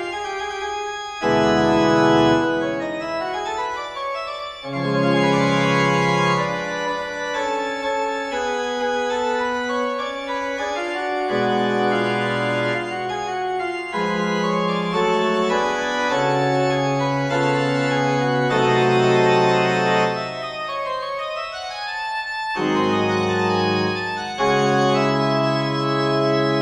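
Organ music: slow, held chords that change every two to four seconds.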